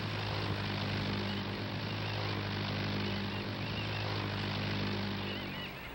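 Twin-engine propeller airplane's engines running with a steady drone as it comes in to land.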